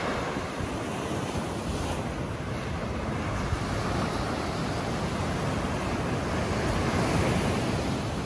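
Small sea waves breaking and washing up a sandy beach in a steady surf wash, with wind buffeting the microphone.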